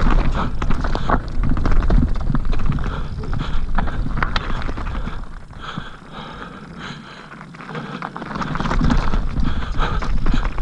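Mountain bike riding down rocky singletrack: tyres crunching over stones and gravel, with clacks and knocks from the bike over the rough ground and a steady low rumble. It goes quieter for a couple of seconds just past the middle, then builds up again.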